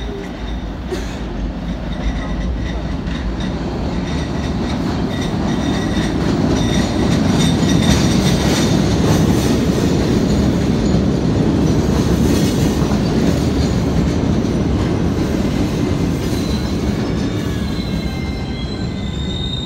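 MBTA Red Line subway train pulling into an underground station platform: a heavy rail rumble that grows louder over the first several seconds as it comes in, then holds. Thin, high squeals join in over the last few seconds as the train slows.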